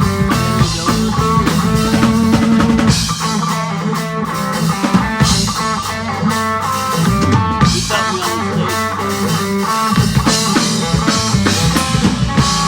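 Rock band playing live in an instrumental passage: drum kit with snare and rimshot hits, electric guitar and bass.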